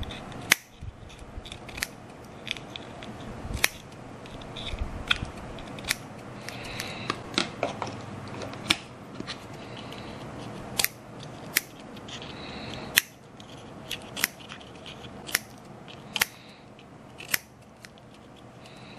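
Scissors snipping through craft material, a sharp snip roughly every second at an uneven pace, cutting parts for a model ship.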